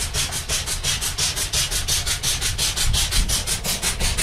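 Small steam engine running, its exhaust chuffing in a quick, even beat of about six puffs a second over a low rumble.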